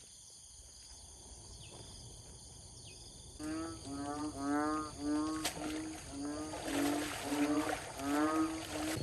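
A faint background for about three seconds, then an animal calling over and over, about two short pitched calls a second, each bending in pitch.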